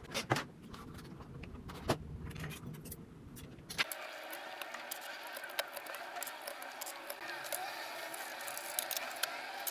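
Typing on a mechanical keyboard: scattered key presses at first, then, from about four seconds in, a dense run of rapid keystrokes with a thinner sound lacking bass.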